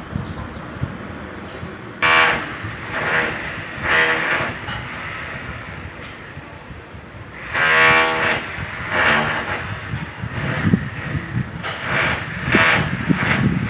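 Electric demolition hammer (martelete) breaking concrete, hammering in short bursts of half a second to a second with a steady buzzing pitch. The first bursts start about two seconds in, then a pause, then quicker repeated bursts near the end.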